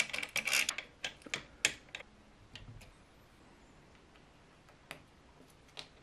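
Hands handling 3D printer parts during assembly: a rapid run of small clicks and rattles of metal and plastic for the first two seconds, then a few single sharp clicks near the end.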